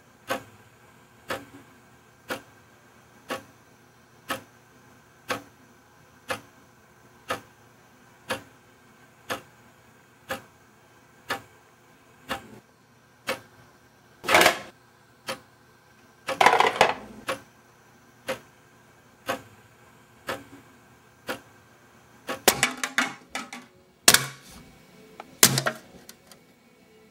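A clock ticking steadily about once a second, broken by two louder rustling noises midway, then a burst of clattering and knocking near the end as the ticking stops.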